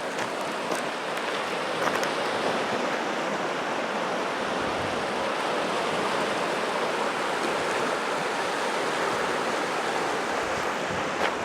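Steady rush of the Gunnison River's fast-flowing water, with a few faint clicks near the start and end.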